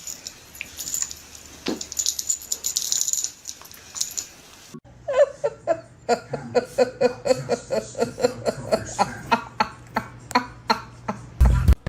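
Light clicking and rattling, then a long run of quick, rhythmic laughter-like vocal pulses, about four a second, ending in a loud low thump.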